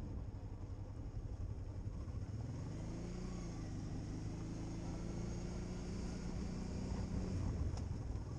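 Motorcycle engine running on the move, with wind rumbling on the microphone. From about three seconds in, a steady engine hum stands out over the rumble until near the end.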